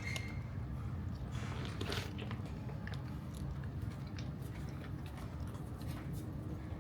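Cats eating, chewing with irregular short clicks over a steady low background rumble.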